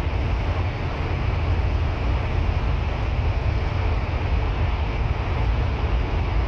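Steady low rumble of a bus in motion, engine and road noise heard from inside the cabin.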